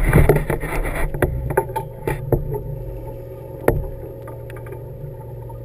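A fishing boat's engine running with a steady low hum. A second-long burst of rustling comes near the start, then several sharp knocks, the loudest almost four seconds in.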